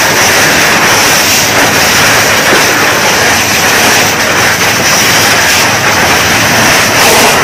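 Loud, steady rushing hiss of water jetting from a fire hose nozzle at close range.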